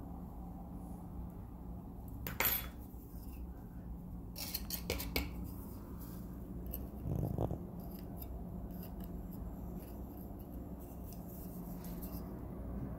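Low steady hum with a few light, sharp clicks, one about two and a half seconds in and a few more around five seconds in, and a brief dull thud or rumble about seven seconds in.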